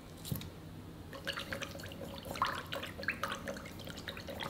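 Wooden chopsticks stirring a lump of palm sugar into a liquid dressing in a ceramic bowl: one click near the start, then from about a second in a busy run of light taps and clicks against the bowl with splashing of the liquid.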